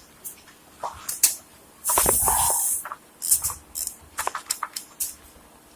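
A short hiss of spray about two seconds in, lasting under a second, with light clicks and knocks of tools and parts before and after it.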